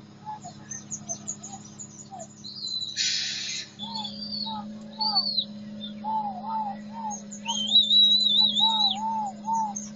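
Birds chirping and calling again and again in short, repeated notes, with one long warbling call near the end. A short burst of noise comes about three seconds in, over a steady low hum.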